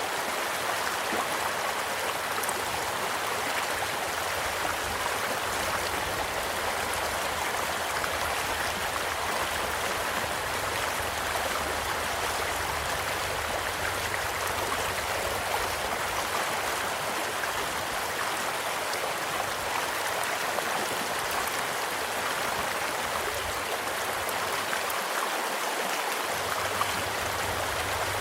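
A small stream flowing with a steady rushing, with a few faint crackles from a campfire scattered through it and one slightly sharper pop near the end.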